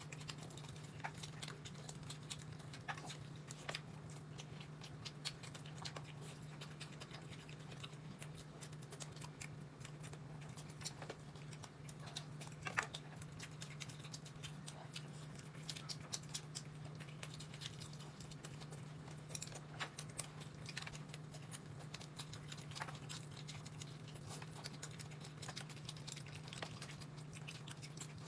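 Faint eating sounds: scattered small irregular clicks and chewing noises from a person eating from a bowl, over a steady low hum.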